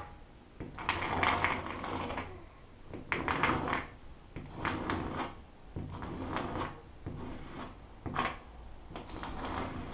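The back end of a plastic caulk tube scraping across a textured drywall ceiling in repeated strokes, smoothing fresh caulk along the edge: about half a dozen short rubbing strokes, each under a second.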